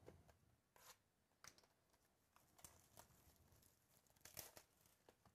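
Faint crinkling and tearing of clear plastic shrink-wrap being peeled off a 2017 Topps Chrome baseball hobby box by hand, in scattered short rustles, the loudest about four seconds in.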